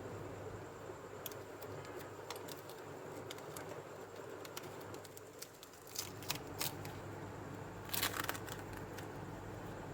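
Scattered small clicks and taps of hand tools and parts being handled at a repair bench, with a few quick clicks about six seconds in and a louder rattling cluster about eight seconds in, over a steady low hum.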